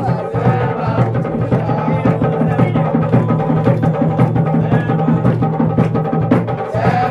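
Drum-led percussion music: drums playing a quick, busy rhythm of sharp strokes over steady low tones.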